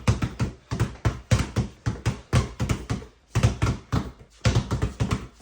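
Basketballs being dribbled hard and fast on a garage floor, a quick run of thuds several times a second with two short breaks.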